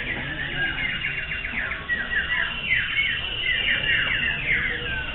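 Several common ioras (cipoh) singing at once in a song contest, their quick whistled phrases and repeated notes overlapping without a break.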